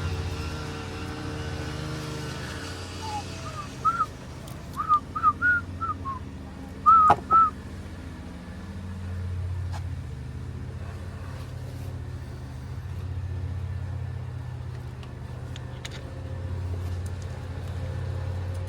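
A run of about ten short whistled chirps, mostly rising in pitch, a few seconds in, over a steady low rumble.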